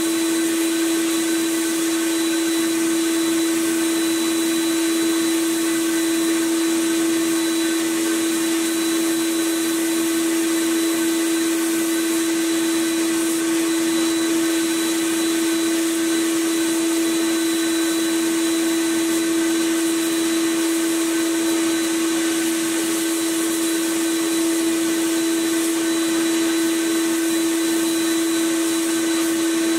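A small electric motor running at a constant speed: a steady high hum over an even hiss, with no change in speed or load.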